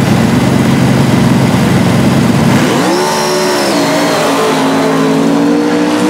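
Drag-racing motorcycles rumbling on the start line, then launching about three seconds in. The engine note climbs sharply, drops at a gear change, and climbs again as they accelerate away.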